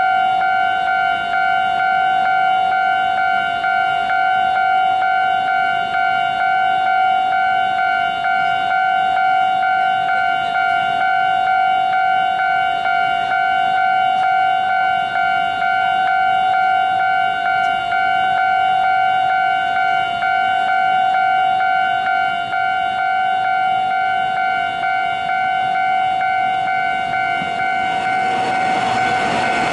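Railway level-crossing warning signal sounding steadily, a high continuous electronic ringing. Near the end, a Taiwan Railway local train starts running over the crossing, its rumble rising under the ringing.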